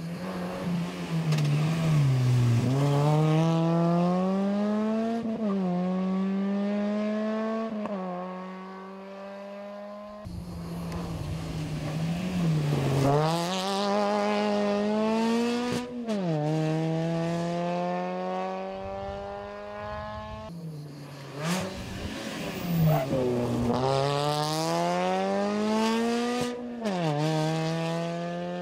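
Suzuki Swift rally cars' four-cylinder engines driven hard on a rally stage, three cars in turn. The engine note repeatedly drops off as each car lifts and brakes, then climbs steeply as it accelerates through the gears.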